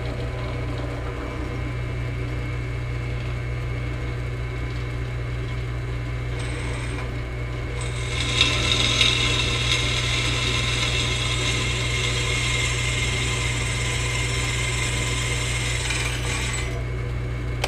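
Drill press motor running with a steady hum. About halfway through, the bit bites into the steel tubing of the frame, adding a high grinding hiss of metal being cut, which stops shortly before the end.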